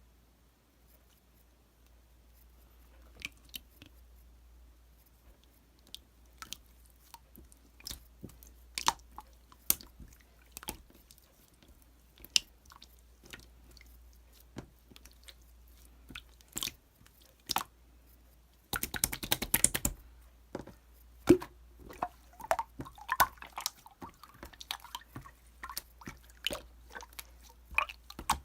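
Slime being squeezed and poked by hand, giving scattered sharp clicks and pops. About two-thirds of the way in there is a second-long run of rapid crackling, and after it the clicking and squishing come thicker.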